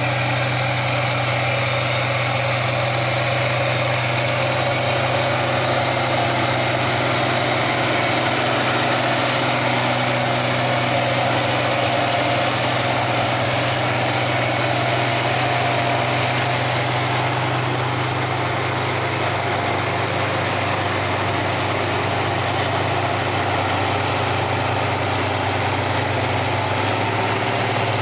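Diesel engines of International Harvester 4366 and 4166 four-wheel-drive tractors running steadily under load as they pull chisel plows through the soil, the sound easing slightly a little past the middle.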